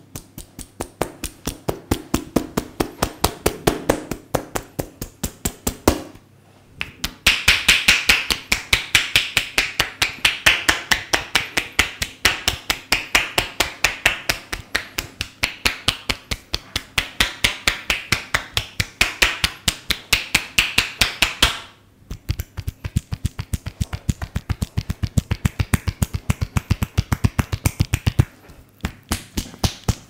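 Tapping massage: a barber's hands striking rapidly and rhythmically on a client, about five crisp slaps a second, in several runs broken by short pauses. In the last run the strikes turn duller and deeper.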